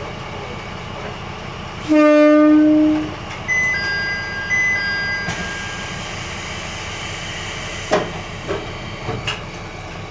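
A diesel railcar's horn sounds once, a single steady note lasting about a second, over the rumble of the idling engine. It is followed by a high two-tone electronic beeping for about two seconds, a hiss of compressed air, and a few sharp knocks near the end.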